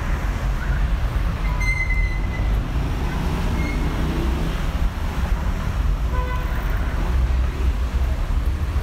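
Street ambience: steady low rumble of road traffic on a busy city street.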